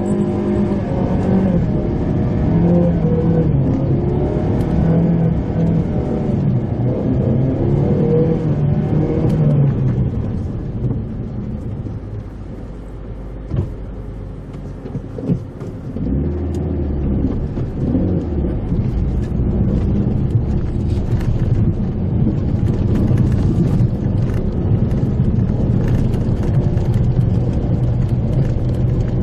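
Mitsubishi Pajero Mini engine running under way, heard from inside the car, its pitch rising and falling with the throttle. It eases off for several seconds just before the middle, when a couple of knocks come through, then pulls strongly again.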